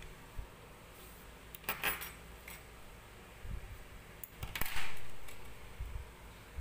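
Handling noise from the coin-purse materials: two brief bursts of light clinking and rustling, one about two seconds in and a louder one just before five seconds.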